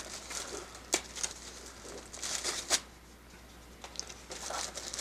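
Packaging being handled: rustling and crinkling of packing material, with two sharp clicks or snaps, one about a second in and one near the middle.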